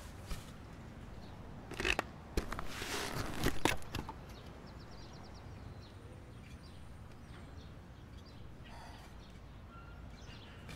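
Quiet outdoor ambience with faint bird chirps. About two seconds in come a couple of sharp clicks, then a rushing whoosh lasting over a second.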